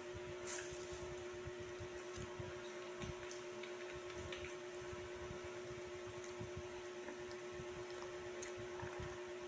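Faint chewing and mouth sounds and soft handling as a soft pastry is torn apart by hand, over a steady background hum.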